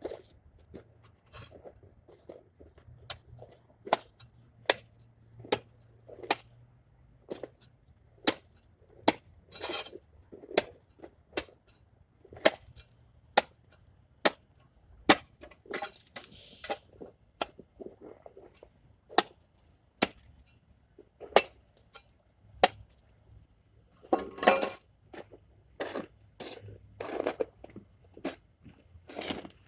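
Ice chopper striking and breaking up a layer of ice: sharp chinking strikes about once a second, with a few longer scraping stretches near the middle and toward the end.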